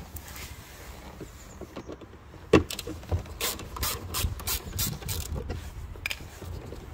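Hand screwdriver with a T25 Torx bit undoing a door card bolt. There is a sharp click about two and a half seconds in, then a run of clicks at about three a second, and one more near the end.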